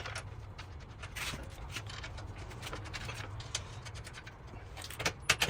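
Irregular light clicks and taps of bolts and hand tools being handled while factory hardware is started by hand, over a faint low hum.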